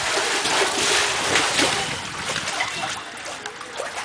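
Water splashing and churning under an inflated clear plastic water-walking ball as it rolls across a shallow pool. The splashing is loud at first, then eases to lighter sloshing about halfway through.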